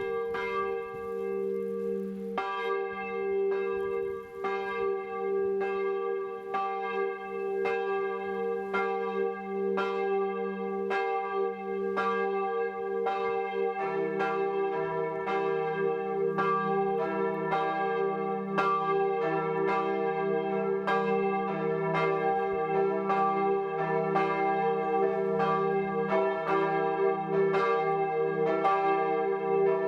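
Two swinging church bells of St. Marien, Nordhorn (bells 3 and 2) ringing, with strikes about once a second and long overlapping hums. A second, deeper bell joins about halfway through.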